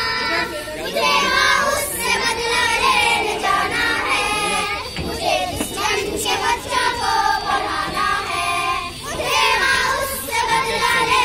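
A group of young girls singing a Hindi patriotic song together, a lead voice on a microphone with the others joining in.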